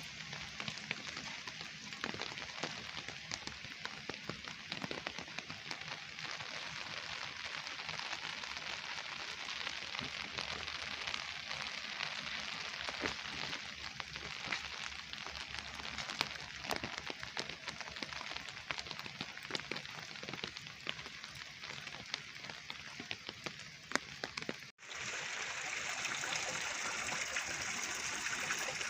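Steady rain falling, with many separate drops ticking close by. About 25 seconds in, a sudden cut brings a smoother, steady sound of running water.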